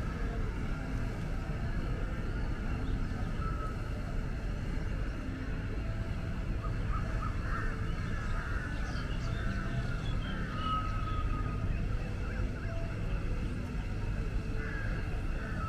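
Steady low rumble of city traffic, with birds chirping and whistling over it, the calls busiest in the middle.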